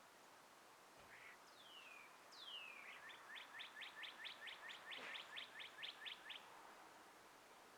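A songbird singing: two falling whistled notes, then a quick trill of about fourteen short falling notes, roughly four a second, over faint background hiss.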